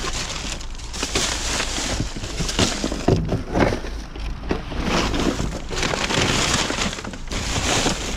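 Rummaging through trash in a dumpster: items rustling, crinkling and knocking together, with several sharper clatters about three seconds in.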